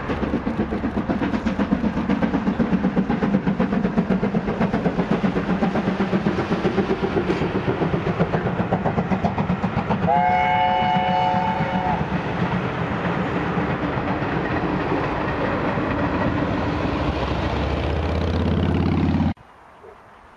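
A steam locomotive works hard past at speed with rapid, even exhaust beats. Its whistle sounds a steady two-second chord about ten seconds in, then the coaches roll by with a steady clatter until the sound cuts off abruptly near the end.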